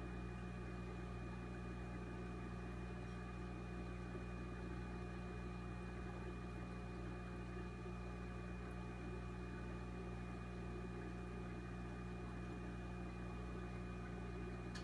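Steady low electric hum of aquarium pump equipment, with a soft, even rush of air bubbling up from the air stones.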